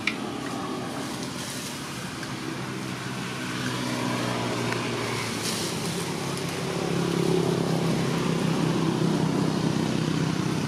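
Steady engine hum, growing louder about seven seconds in.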